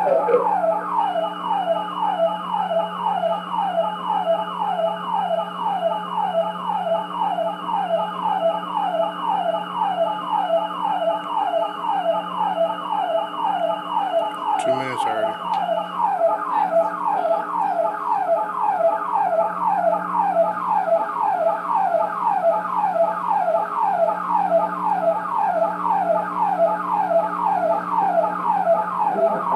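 A siren sounding without a break in quick, repeated falling sweeps, about two and a half a second, over a steady low hum. There is a brief click about halfway through.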